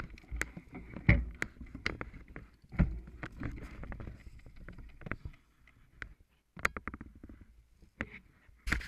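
Mountain bikes being pushed and lifted up a rocky step on foot: irregular clicks, knocks and scuffs of the bikes and of shoes on rock and dry leaves, with short quiet gaps between them.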